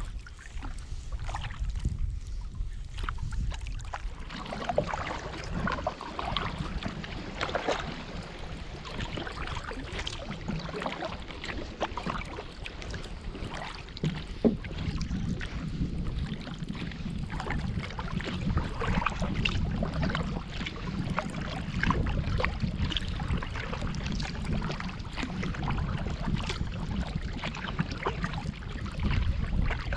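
Kayak paddle dipping and splashing in river water in irregular strokes, over a steady low rumble.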